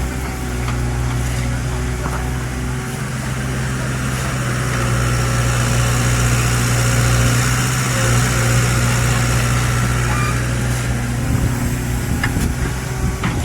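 Excavator's diesel engine running steadily with a low drone that grows a little louder in the middle, with a few sharp clicks or knocks near the end.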